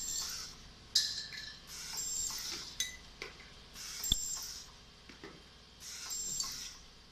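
Fully automatic rotary-turntable ultrasonic welding machine cycling, with a burst of air hiss and a brief high whistle about every two seconds as its heads work, and sharp clicks and clinks of metal fixtures and parts.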